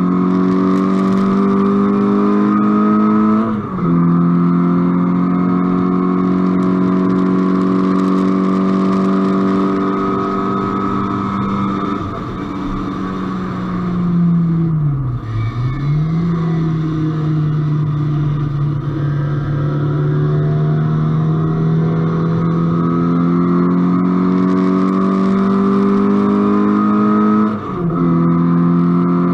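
Car engine under hard acceleration on a track lap. The revs climb steadily and drop sharply with an upshift about three and a half seconds in. Around the middle the note falls away as the car slows for a corner, then climbs again, with another upshift near the end.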